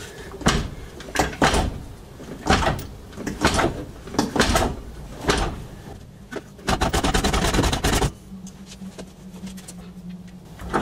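Jack being pumped hard against a BMW E30's rear subframe to shake its stuck bushings loose: repeated metal clunks and knocks about once a second, then a fast rattling run lasting over a second, about seven seconds in.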